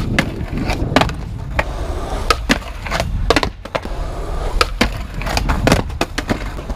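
Skateboard wheels rolling on concrete: a steady low rumble broken by many sharp, irregular clicks and knocks.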